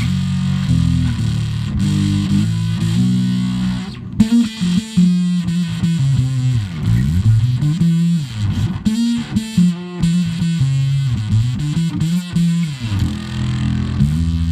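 Teisco bass played through a custom octave-up fuzz pedal, blended with the dry signal, into a Bassman 60 amp. The tone is distorted and splattery, with an added upper octave over a solid low end. Held notes give way about four seconds in to a choppier riff with pitch slides.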